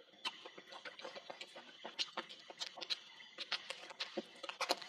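Close-up eating sounds: wet smacking, chewing and sucking as a piece of cooked meat on the bone is bitten and gnawed, heard as a quick, irregular run of clicks and smacks.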